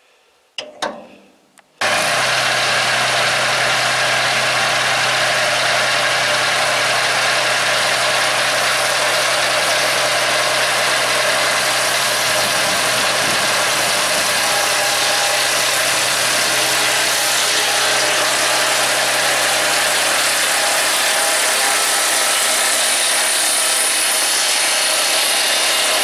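Swing-blade sawmill running: its Honda GX690 V-twin engine and spinning circular blade making a light, shallow cut along a log. It is a loud, steady drone with a constant low hum that starts suddenly about two seconds in.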